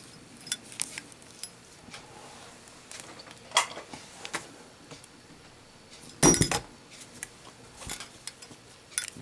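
A Zippo Windy lighter, a flat-sided 1935 replica, dropped onto a hard surface in a drop test: a loud metallic clatter about six seconds in, then a few smaller clinks as it bounces. Light metal clicks of handling come before the drop.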